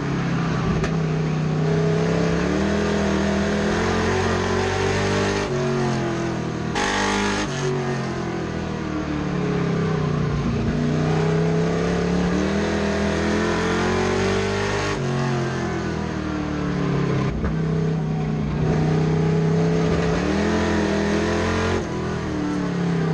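Race truck engine heard from inside the cab at race speed, its pitch climbing as the driver accelerates and dropping as he lifts off, over and over every few seconds. A brief loud rushing hiss about seven seconds in.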